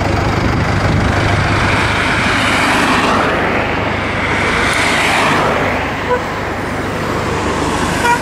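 Road traffic noise over a steady low engine hum; a passing vehicle swells and fades in the middle, and two short beeps sound about six seconds in and near the end.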